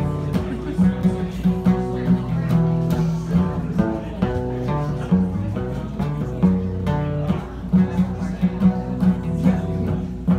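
Acoustic guitar playing the instrumental introduction of a song, picked notes and chords moving in a flowing pattern.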